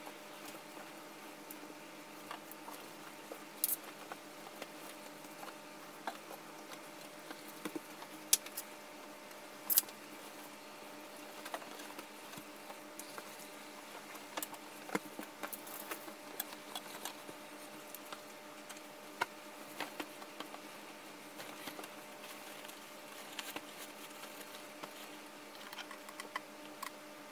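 Bedding being handled while a bed is made: soft rustling of sheets and pillows with scattered light taps and a few sharp clicks, over a faint steady hum.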